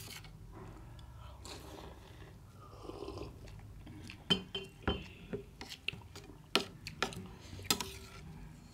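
Tableware sounds from rice being mixed with milk: a metal spoon scraping and clinking against a stainless steel plate, and a glass jar of milk clinking as it is set down. There are soft mixing and eating sounds at first, then a series of sharp clinks from about four seconds in.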